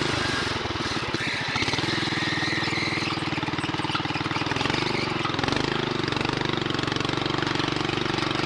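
Honda GX340 single-cylinder engine on a homemade go-kart running under throttle, picking up about a second in and then holding steady, with a brief waver in pitch midway.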